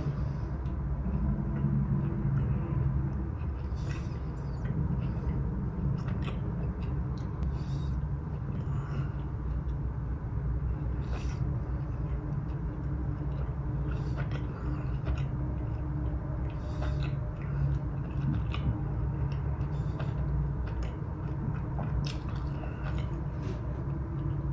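A person chewing and biting into a burger with a thick, dense brioche bun: soft, wet mouth sounds with scattered small clicks over a steady low hum.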